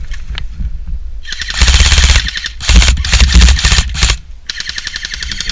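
Airsoft gun firing on full auto in two long bursts of rapid shots: one from about a second in until about four seconds, the other starting just before the end.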